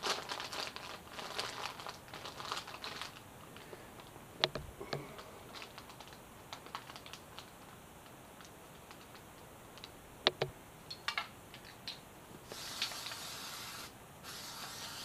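Brown paper template crinkling as hands press and smooth it flat over a coat's lining, then scattered light clicks and taps. Near the end come two short hisses of spray adhesive sprayed through the template's cut-out.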